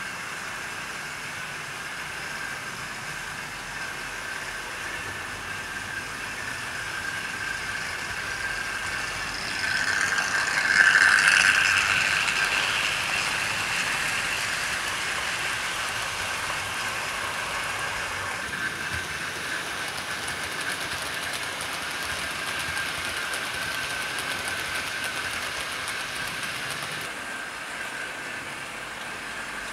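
A 00 gauge model train running on the layout: a steady electric-motor whine with wheels rolling on the rails. It grows louder as the train passes close about ten seconds in, then eases away.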